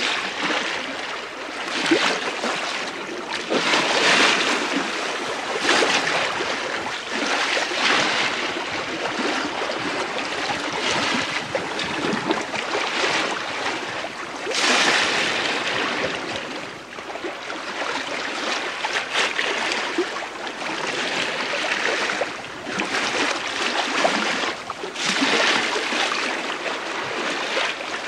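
Bow wave of the sailing ship STS Malcolm Miller rushing along the hull under sail in light wind, heard from the ship's lee quarter. The wash swells and eases every couple of seconds.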